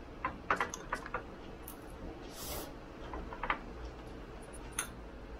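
Stainless steel chopsticks clicking and scraping against a ceramic rice bowl while breaking into a fried egg's yolk: a quick cluster of light clicks in the first second and a half, then a few more later. A brief soft hiss comes about halfway through.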